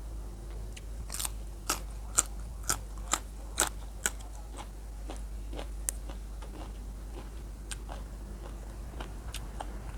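Person chewing crisp fresh chili close to the microphone: a run of sharp crunches between about one and four seconds in, then softer, sparser crunches.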